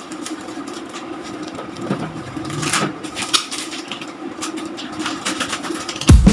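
Black plastic parcel wrapping being pulled and torn open by hand: scattered crinkling and tearing of plastic over a steady low hum. Background music with drums starts right at the end.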